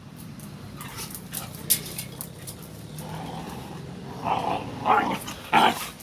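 Excited pet dog at a metal gate, giving three short barks about a second apart in the last two seconds, after some light clicks and taps in the first half.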